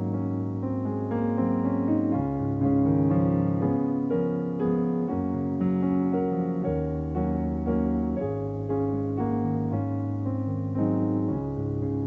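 Piano playing slow, sustained chords over a held bass line.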